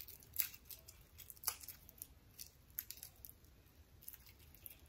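Faint crackling and rustling of dry, papery garlic skin being peeled by hand from smashed cloves, in scattered short crinkles.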